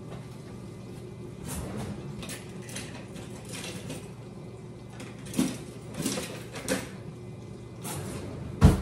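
Kitchen drawer and utensil sounds off to the side: scattered clicks, clinks and knocks while a serrated knife is fetched, with one loud knock near the end.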